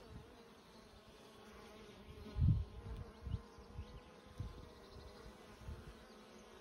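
Honey bees buzzing as they fly in and out of a hive entrance: a steady hum. Several low muffled thumps sound on the microphone, the loudest about two and a half seconds in.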